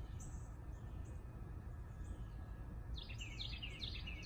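Outdoor ambience: a steady low rumble, with a bird chirping a quick run of short notes about three seconds in.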